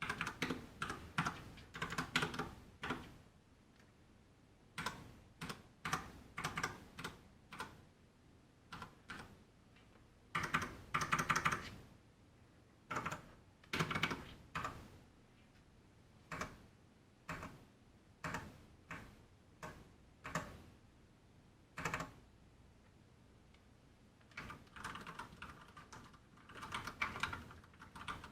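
Typing on a Ducky One 2 RGB full-size mechanical keyboard with Cherry MX Brown switches: irregular key clicks in quick runs, broken by short pauses and a few single presses.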